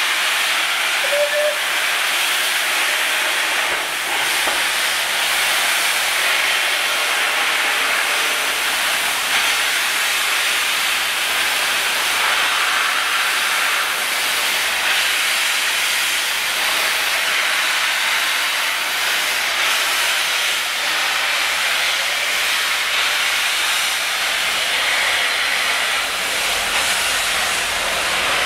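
Steam hissing steadily from the front end of 34046 Braunton, a Bulleid West Country class Pacific steam locomotive, as it stands in the platform.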